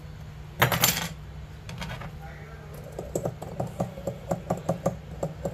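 Tweezers and a metal reballing stencil clicking and tapping on a workbench: a loud clatter about half a second in, then a quick run of light metallic taps, about four or five a second, through the second half.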